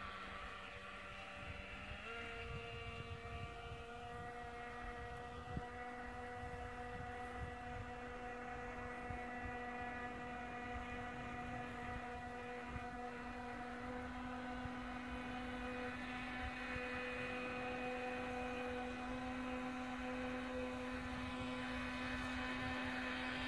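Steady hum of a small electric motor, stepping up in pitch about two seconds in and then holding, slowly growing louder.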